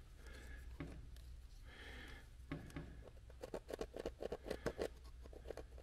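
Pencil tracing on an HDPE plastic panel: a quick run of short scratching strokes starting about three seconds in and lasting about two seconds.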